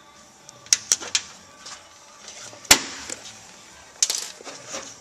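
Sharp metal clicks and taps of small seat parts and pliers being handled on a concrete floor: three quick clicks about a second in, the loudest single click a little before three seconds in, and another click with a brief rustle about four seconds in.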